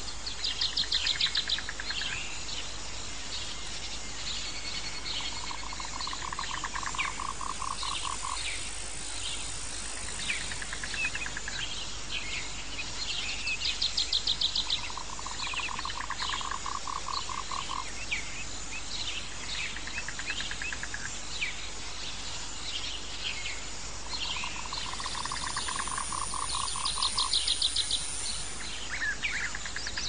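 Jungle ambience of calling frogs, insects and birds. A pulsed, trilling call about two seconds long repeats every eight seconds or so. Higher pulsed calls and scattered chirps sound over a steady insect hiss.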